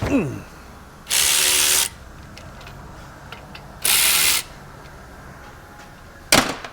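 Power wrench run in two short bursts of under a second each, loosening the brake caliper bolts, with a clunk at the start and a sharp metal knock near the end.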